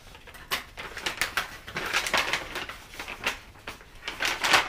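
Gift wrapping paper being torn and crinkled off a small box: an irregular run of rustling rips, loudest near the end.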